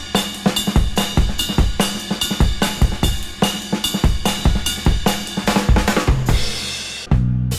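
Background music with a steady drum-kit beat of kick, snare and cymbals. About seven seconds in, the drums drop out and a bass line carries on.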